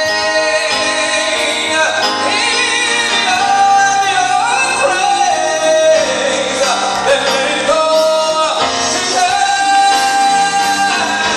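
A man singing a gospel solo into a microphone, holding long notes with a slight waver and sliding through runs between them.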